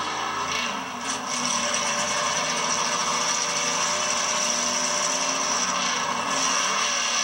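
Drag-racing Camaro's engine idling steadily while staged at the starting line, recorded through an old camcorder's hissy microphone.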